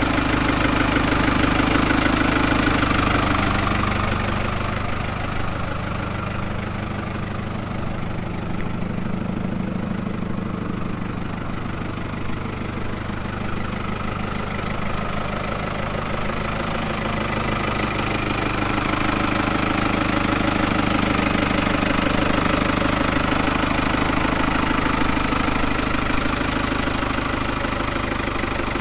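Farm tractor engine running steadily under way, pulling a brush hog. It eases down in loudness and pitch a few seconds in and comes back up about two-thirds of the way through.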